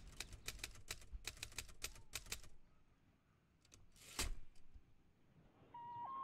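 Typewriter keys striking as text is typed: a quick, uneven run of about a dozen keystrokes, a pause, then a few more strokes and one heavier strike about four seconds in. A flute melody begins near the end.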